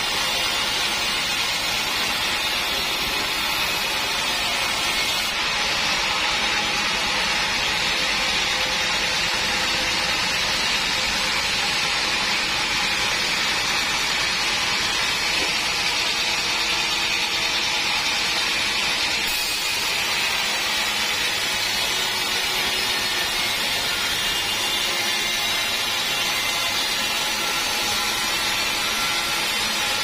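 Homemade band sawmill running, its blade cutting lengthwise through a teak log: a loud, steady mechanical noise with a brighter, hissier edge from about five seconds in to about nineteen seconds in.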